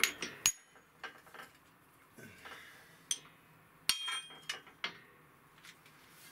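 Several short, sharp metallic clinks and knocks of steel parts, a suspension control arm and steel pressing cups, being moved about on the steel plates of a hydraulic shop press. There is one clink right at the start, another about half a second in, and a cluster a little after the middle.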